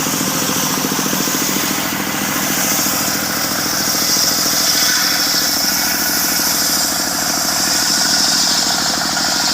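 Engine-driven sawmill circular saw running steadily, the engine pulsing fast and evenly, with a higher whine from the blade that grows stronger about four seconds in.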